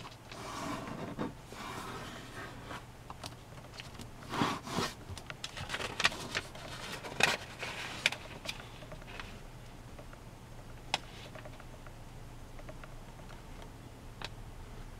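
A sheet of origami paper being handled and folded: rustling and sliding on the tabletop, with sharp crackling ticks as folds are pressed flat. It is busiest in the first half and quieter and sparser later.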